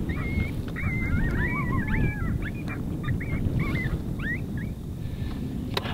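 Coyote vocalizations: a burst of quick, high yips and short wavering howls that thins to scattered single yips, over a steady low wind rumble on the microphone. A sharp click near the end.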